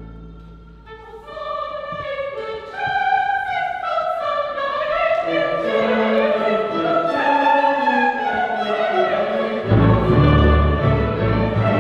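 Orchestra with violins playing classical music: held string notes swell up from quiet and trace a melody that climbs and then falls, and deep low notes come in strongly near the end.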